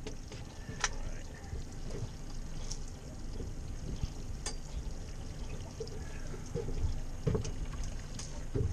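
Water from a boat's deck washdown hose pouring and splashing onto the deck, with a few light knocks.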